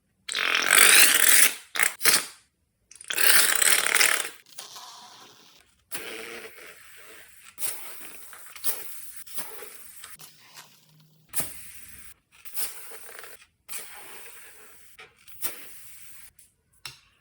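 Slime being squeezed and worked out of a balloon. Two loud rushing squirts come in the first four seconds, then quieter wet squelching with a sharp pop about once a second.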